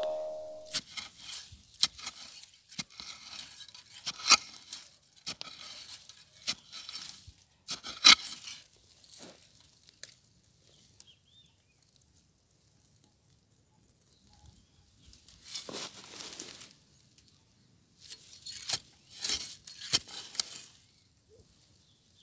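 Dry grass and twigs crackling and rustling in irregular bursts with a few sharp snaps, falling quiet for a few seconds midway before the rustling resumes.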